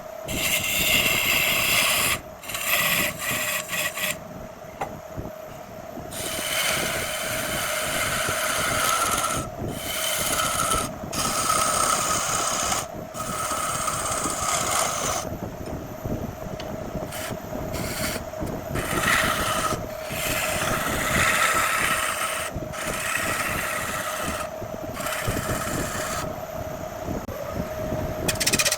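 Wood lathe running with a steady hum while a turning tool scrapes and cuts a spinning jackfruit wood blank. The cutting comes in stretches that start and stop abruptly.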